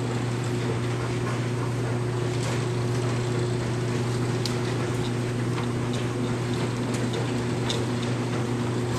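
Clothes dryers running: a steady low hum with a fainter higher tone, and a few light clicks.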